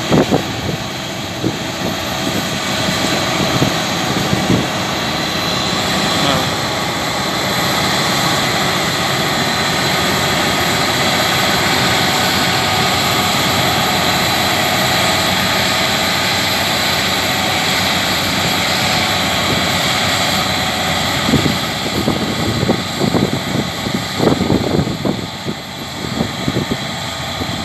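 Claas Lexion 660 combine harvester working in a wheat field: a steady engine drone with a high whine through it, louder through the middle as it comes nearer. Irregular low bumps, likely wind on the microphone, come near the end.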